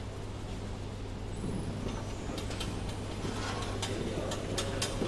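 Chicken-drumstick packing machine and its belt conveyors running: a steady motor hum with scattered sharp clicks, most of them in the second half.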